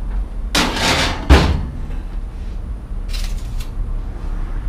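Gas stove's oven door being shut: a scraping slide, then a loud bang about a second in. A softer scrape follows about three seconds in.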